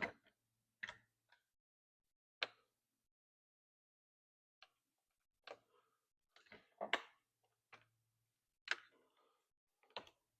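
Scattered clicks and light knocks of hands and small tools working on a chainsaw's plastic housing and fuel-line parts, about a dozen short irregular taps with a cluster of louder ones a little before the middle.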